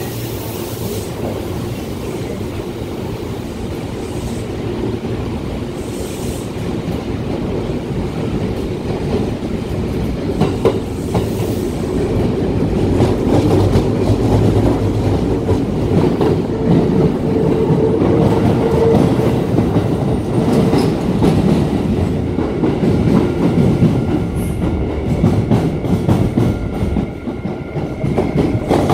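Commuter train running through an underground tunnel: steady wheel and rail rumble with clacks over the rail joints, growing louder over the first half as it gathers speed.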